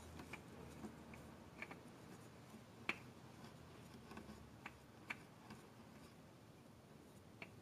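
Faint scattered clicks and light rubs as a nitrile-gloved hand turns an AMSOIL spin-on oil filter onto its mounting base, the loudest click about three seconds in.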